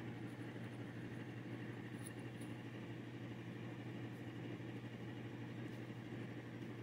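Steady low mechanical hum in the room, with a couple of faint light ticks about two seconds in.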